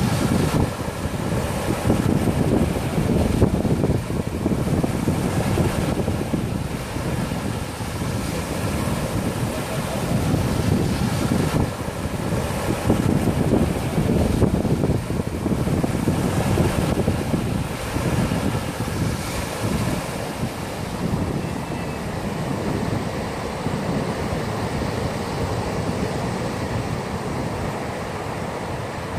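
Strong wind buffeting the microphone with a low rumble, over small waves washing in and out on a sandy beach. The noise swells and eases every few seconds.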